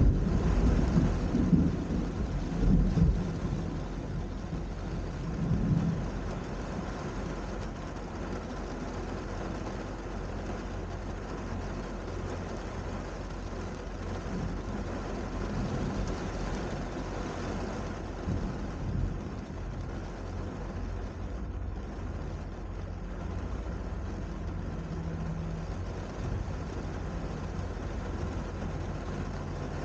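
Thunder rumbling over steady rain during the first six seconds or so, then steady rain with a few fainter low rumbles further on.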